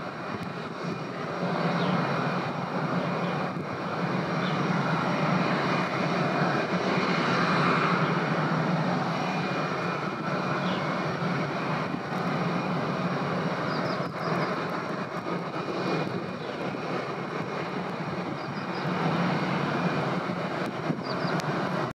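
Airbus A321-211 jet airliner's CFM56 turbofan engines running at taxi power as the aircraft rolls along the taxiway: a steady low rumble with a faint high whine.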